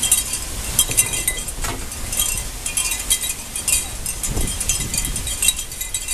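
Heavy rain pouring down as a steady hiss, with many quick, light metallic clinks and ticks sounding over it.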